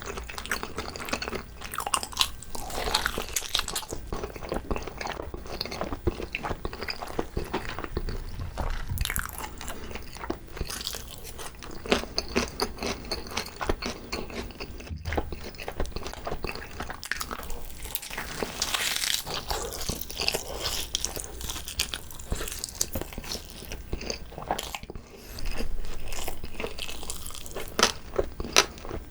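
Close-miked eating of a whole pig's foot (jokbal): irregular biting and chewing with many quick wet clicks and smacks, and a louder stretch of about a second and a half near the end.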